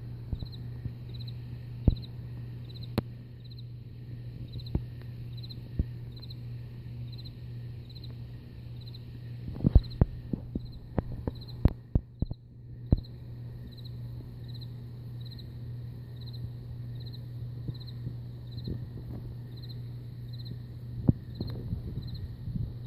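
A cricket chirping in an even rhythm, about three chirps every two seconds, over a fainter continuous high trill and a steady low hum. Scattered sharp knocks sound over it, with a cluster about ten seconds in.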